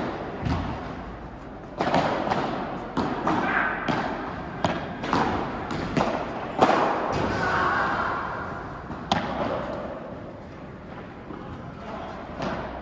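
Padel rally: sharp knocks of rackets striking the ball and the ball bouncing off the court and walls, about a dozen hits at irregular intervals, each with a short echo.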